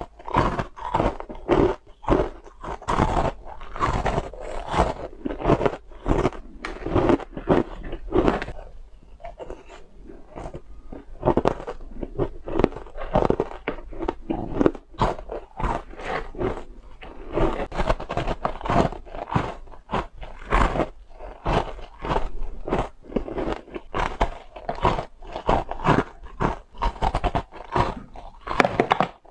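Frozen matcha ice being bitten and chewed close to the microphone: a dense run of sharp, crunchy bites, a few each second, easing briefly about a third of the way through.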